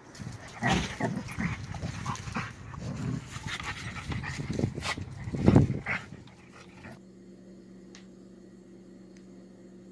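Two puppies play-fighting: scuffling and short, irregular puppy cries, with a louder cry about five and a half seconds in. About seven seconds in this gives way abruptly to a quieter steady low hum.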